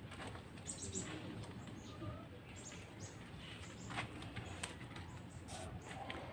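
Faint chirps of small birds over low yard ambience, with a few scattered light clicks and rustles.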